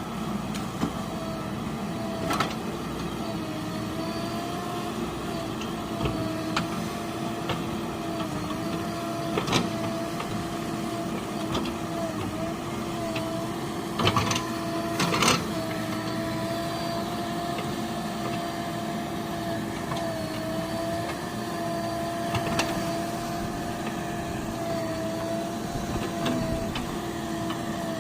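Engine running steadily at constant speed, giving a steady hum, with scattered clicks and knocks; the loudest knocks come about halfway through.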